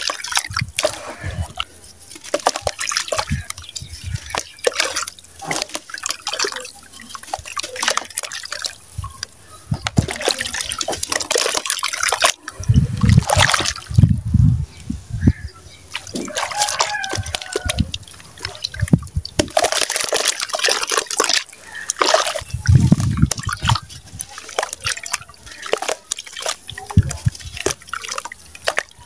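Dry sand-cement chunks with small white stones being crumbled by hand into a plastic basin of water: gritty crunching and many small clicks as grains and bits pour and patter into the water. Twice the hand sloshes and stirs through the water with a low, heavier swish.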